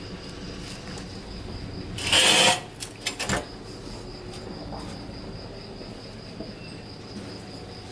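Insects chirring steadily with a thin high tone, broken about two seconds in by a short loud noisy burst and a few sharp clicks just after it.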